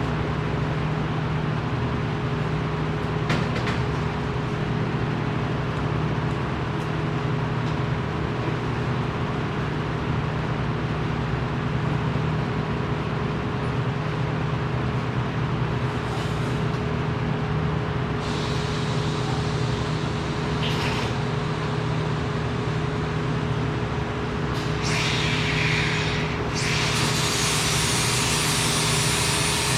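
Steady low machine hum of workshop equipment in a welding shop, with short bursts of hiss in the second half and a harsher, continuous hiss setting in near the end.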